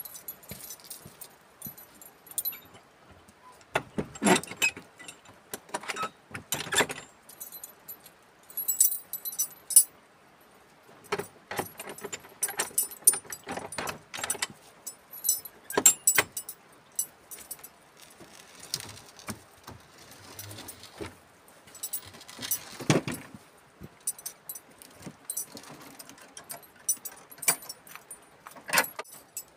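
Irregular metallic clinking and jangling as the iron latch and metal hardware of an old wooden door are handled, in scattered bursts of sharp clinks.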